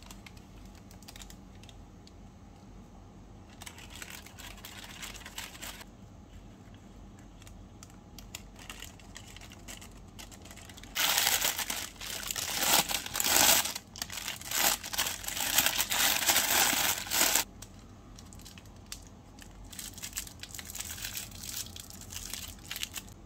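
Crinkling and crackling of a wrapper or packaging being handled, soft at first, much louder for about six seconds in the middle, then soft again.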